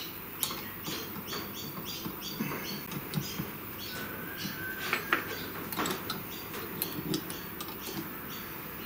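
Light, irregular metallic clicks, taps and scrapes as a cutting bit is fitted into the CNC router spindle's collet and the collet nut is tightened, with a short squeak about five seconds in.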